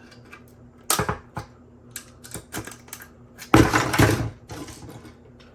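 A few sharp clicks of hard 3D-printed plastic being handled, then a louder clatter about three and a half seconds in as the printed helmet parts are dropped.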